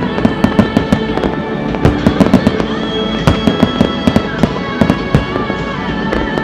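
Aerial fireworks bursting in a rapid string of sharp reports, several a second, with music playing along with them.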